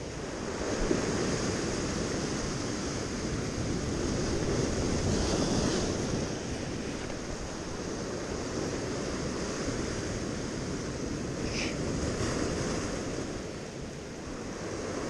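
Surf breaking and washing over a rocky shoreline: a steady rush of sea water.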